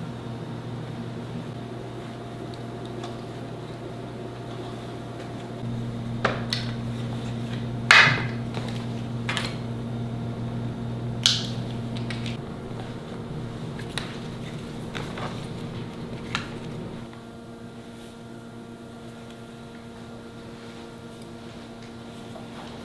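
Steady low machine hum that shifts about a quarter and halfway in and drops quieter near the end. Over it come about half a dozen sharp knocks and clicks, the loudest about eight seconds in.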